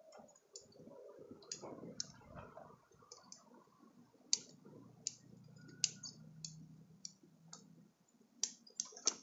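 Bonsai pruning scissors snipping off small branches and leaves: sharp, irregular clicks, about fifteen of them.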